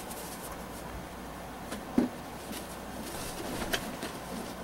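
Faint handling sounds of a fabric gear bag being rummaged, with a soft knock about two seconds in and a couple of small ticks, over steady room noise.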